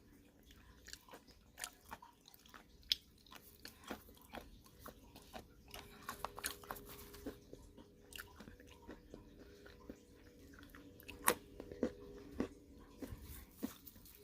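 Nuts being handled, giving irregular crisp cracks and clicks, a few sharper and louder ones about eleven seconds in. A faint steady hum runs underneath, stronger in the second half.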